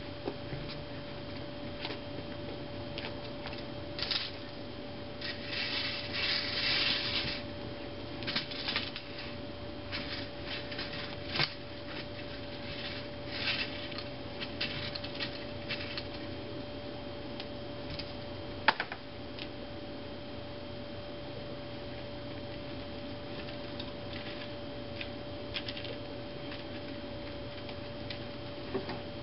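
Rake scratching over freshly seeded dirt in irregular bursts, busiest in the first half, with one sharp click about two-thirds through. A steady high hum runs underneath.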